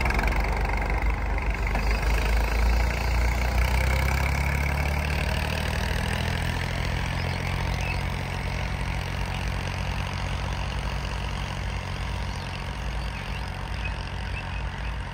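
Tractor diesel engine running steadily under load as it pulls a rotavator through the soil, growing slightly fainter as it moves away.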